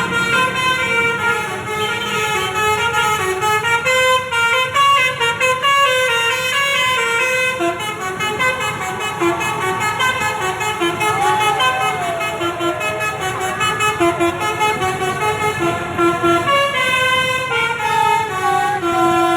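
Bus telolet horn: a set of musical air horns playing a quick tune, several notes sounding together and stepping from pitch to pitch, on and on.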